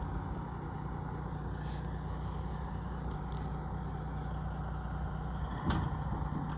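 Freightliner Classic semi truck's diesel engine running low and steady as the rig backs a trailer slowly, with a brief louder burst of noise near the end.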